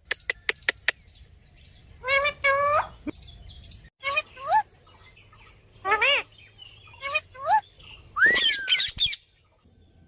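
A pet green parakeet calling. A quick run of sharp clicks comes first, then short squawks whose pitch bends up and down, and a longer, louder call near the end.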